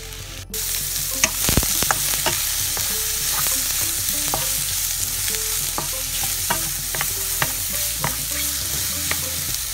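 Sliced mushrooms sizzling in hot olive oil in a small nonstick wok, stirred with a wooden spatula that scrapes and taps against the pan. A steady frying hiss with frequent short clicks, which cuts out briefly about half a second in.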